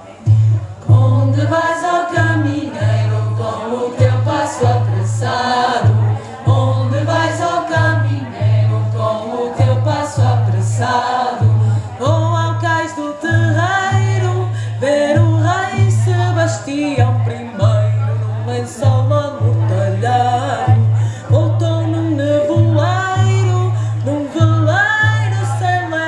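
Live folk ensemble performing a Portuguese song: several voices singing together over amplified instruments, with a low bass note pulsing in and out underneath.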